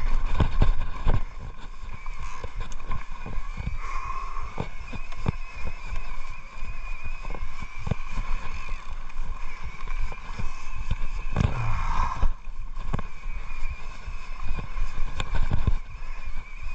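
Mountain bike descending rough dirt singletrack: steady tyre and wind noise with frequent knocks and rattles as the bike goes over roots and bumps, and a faint wavering high whine.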